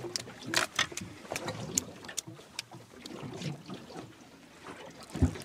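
Scattered clicks, knocks and rustling as a freshly landed fish is lifted out of a bag and handled aboard a small boat, with one heavier thump about five seconds in.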